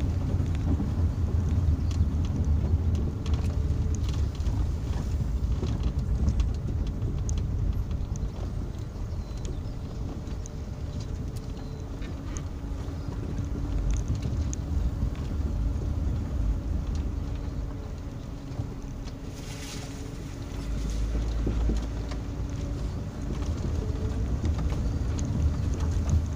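Hyundai Santa Fe driving slowly over a bumpy dirt track, heard from inside the cabin: a steady low rumble of engine, tyres and suspension with many small knocks and rattles. A brief swish comes about twenty seconds in.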